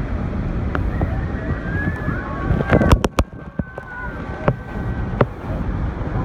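Steady roar of Niagara's Horseshoe Falls and the churning water below, with wind buffeting the microphone. A few sharp clicks come about three seconds in.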